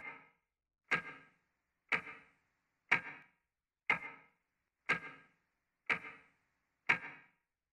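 Clock ticking steadily: eight sharp ticks about a second apart, each with a brief ring after it.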